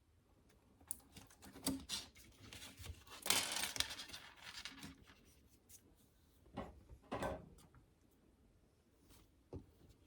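Hands working on small parts of an audio unit under repair: scattered light clicks, and a longer rustling scrape from about three to five seconds in, then two short scrapes a little later.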